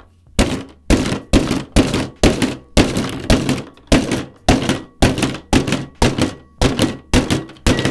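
A table knife stabbed down again and again at a squeeze bottle of chocolate ice-cream topping lying on a table, a fast run of loud thuds about two to three a second. The topping has set hard in the bottle and is being broken up.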